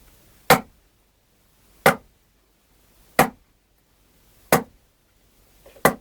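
Five sharp strikes made by hand as a Foley sound effect, evenly spaced about 1.3 seconds apart.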